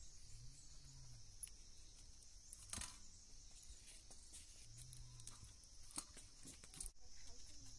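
Faint, steady high chirring of insects, with a few sharp clicks about three, six and seven seconds in.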